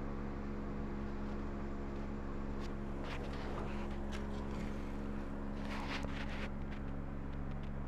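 Steady low machine hum made of several held tones, with a few light clicks and rustles around the middle.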